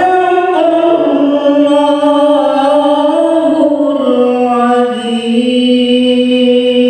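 A man reciting the Quran in the melodic tilawah style into a microphone. He holds long notes that shift pitch slowly and settle on a long, lower held note.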